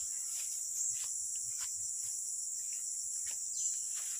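A steady, high-pitched chorus of insects buzzing continuously, with a few faint clicks.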